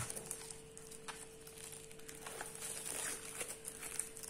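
Plastic cling film being peeled back and crinkled off a tray of raw meat: soft, irregular crackling that picks up a little about halfway through, over a steady faint hum.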